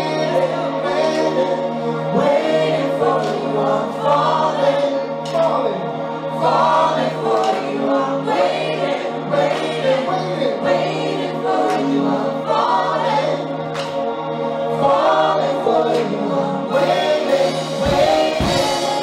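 Live band with several singers, a man and women, singing together into microphones over drums. A steady low note is held under the voices for most of the passage.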